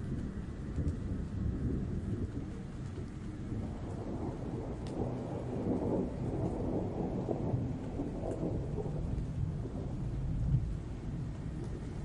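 Dark atmospheric ambience sound effect: a continuous low rumble that swells in the middle, with a few faint ticks.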